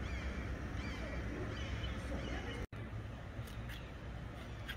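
Outdoor street ambience: a steady low rumble with faint bird calls over it. The sound cuts out for an instant about two-thirds of the way through.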